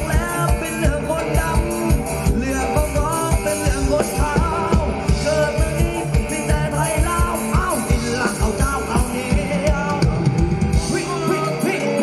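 Live band playing Thai ramwong dance music, a voice singing the melody over a steady drum beat and bass. Near the end the drums and bass drop out.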